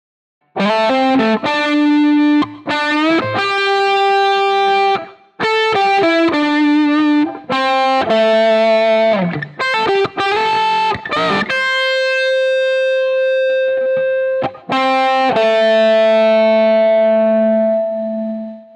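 Unaccompanied electric guitar playing a pentatonic lick at 100 beats per minute. The line has quick single notes, full-tone string bends and vibrato, and ends on long sustained notes.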